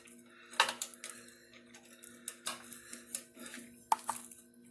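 A few sharp metal clinks and taps of hand tools and small parts being handled, spaced irregularly, over a faint steady hum.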